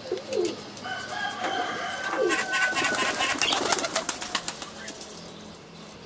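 Domestic pigeons cooing in low, wavering calls, with higher bird calls early on and a fast run of sharp clicks through the middle seconds.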